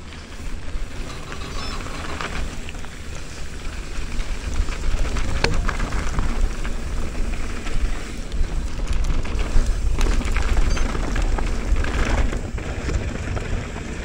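Downhill mountain bike riding at speed on a dusty trail: tyres rolling and crunching over dirt and rocks, the bike knocking and rattling over bumps, and wind rumbling on the microphone.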